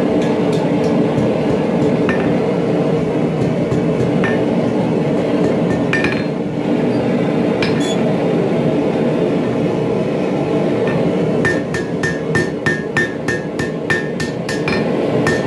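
Hand hammer striking hot steel bar stock on an anvil, each blow with a sharp ring from the anvil. There are a few scattered blows at first, then from about three-quarters of the way in a steady run of about two to three blows a second, all over a steady loud background noise.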